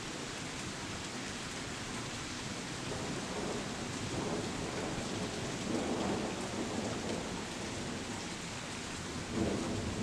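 Steady heavy rain, with rolling thunder rumbling in low swells through the middle and a louder rumble near the end.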